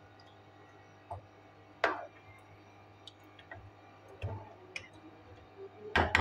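Metal spoon clinking and scraping against a karahi while stirring chicken in thick masala: a few sharp, separate knocks about a second or more apart, the loudest about two seconds in and near the end.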